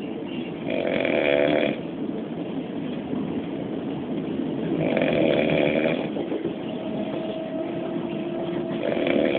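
A man snoring in his sleep: three loud snores about four seconds apart, each lasting about a second, over the steady rumble of a moving train.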